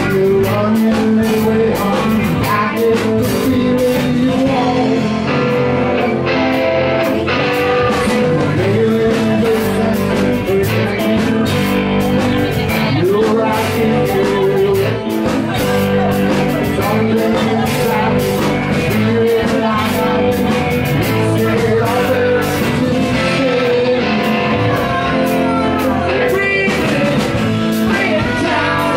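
Live rock band playing through the PA: electric and acoustic guitars over a steady drum beat, with a man singing lead.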